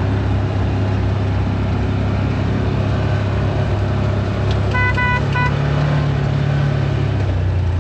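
ATV engine running at low speed, its pitch rising a little past the middle and dropping near the end. A little after the middle, a horn toots twice, one longer beep and a brief second one.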